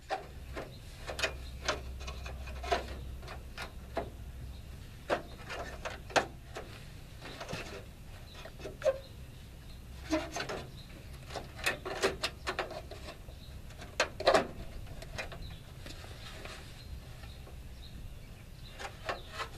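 Irregular clicks, knocks and rubbing of a 1986 Ford F-150's headlamp bezel and trim being wrestled back into place against the grille by hand, with a quick cluster of knocks around the middle.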